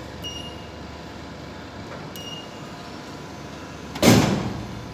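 Toy vending machine dispensing: two short electronic beeps, then about four seconds in the carded die-cast toy falls from its spiral coil into the delivery bin with a loud thump that fades within a second.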